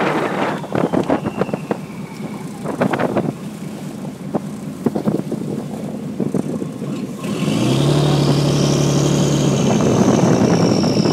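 A fishing boat's motor running under way, with knocks and clatter on the metal deck. About seven and a half seconds in it gets louder, with a steady hum and a high whine that rises and then slowly falls.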